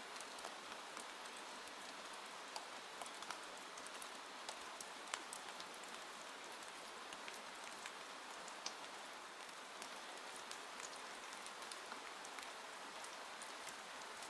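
Steady rain falling on a window pane: an even hiss with many scattered sharp drop ticks.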